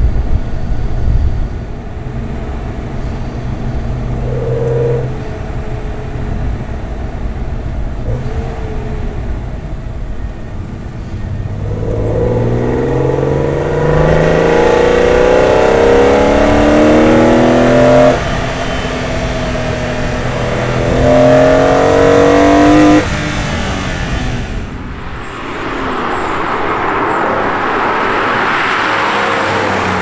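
BMW E46 M3's S54 straight-six heard from inside the cabin through an Eventuri carbon intake, with a throaty, raw induction note. It cruises, then accelerates hard nearly halfway through, rising steeply through a gear, changing up, pulling again and lifting off. Near the end the car is heard from the roadside driving past.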